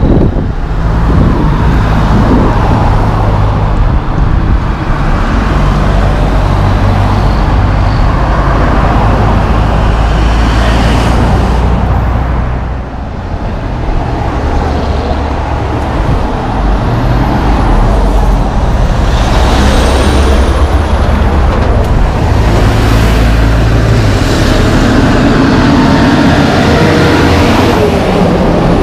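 Road traffic with heavy diesel trucks and cars passing: a steady low engine drone over tyre noise. Near the end a loaded logging truck passes close, its engine and tyres loud.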